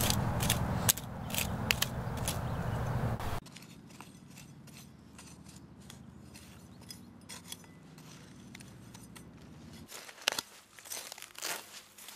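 Hand hoe blades scraping and chopping through soil in sharp clicks and scrapes. A steady low rumble runs under the first three seconds and cuts off suddenly. After that the scraping is faint, then grows louder and busier near the end.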